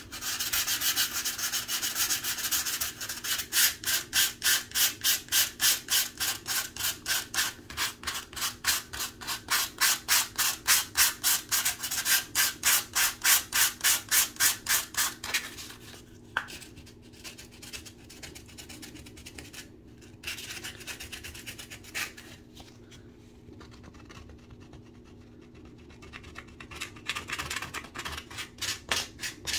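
Hand-held sandpaper rubbed back and forth over a dried filler patch on drywall, in quick, even strokes about three a second. About halfway through the strokes become fewer and quieter, then pick up again near the end.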